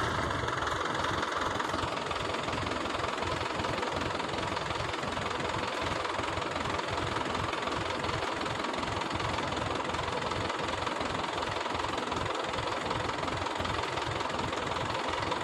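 Diesel engine of heavy machinery idling steadily, with a fast, even knocking beat.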